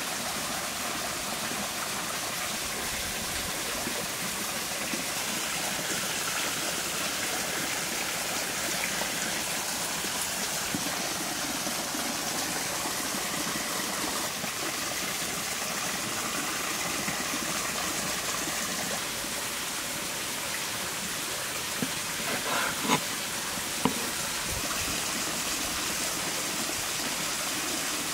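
Steady rushing of a small creek, with a few light knocks about three quarters of the way through.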